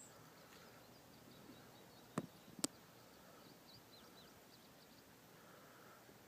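Quiet outdoor ambience with faint bird chirps, broken a little over two seconds in by two short, sharp clicks about half a second apart.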